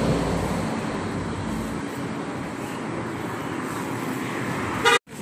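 Steady street traffic noise from passing cars, with a low rumble in the first two seconds, then a brief voice and a sudden cut near the end.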